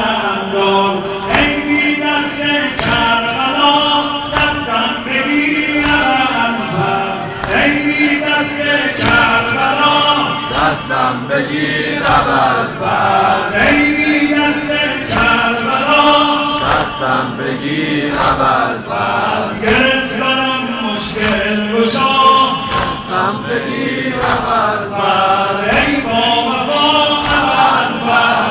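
Men chanting a Shia mourning lament (noheh) together, with hands slapping on chests in a steady rhythm of sineh-zani.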